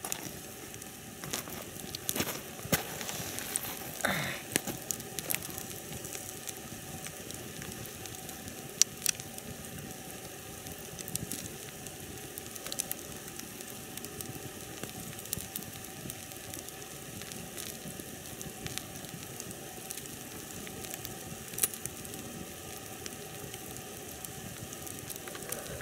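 Wood campfire burning: a steady hiss of flames with irregular crackles and sharp pops from the logs, a few louder pops standing out.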